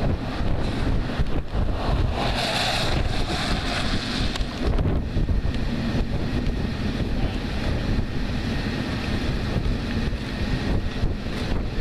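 Strong wind buffeting the camera microphone: a steady low rumble, with a louder hiss for a few seconds about two seconds in.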